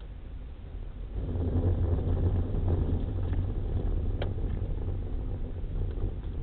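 Car driving on a loose gravel track, heard from inside the cabin: engine and tyres on the gravel, growing louder about a second in, with a few short clicks and one sharp click about four seconds in.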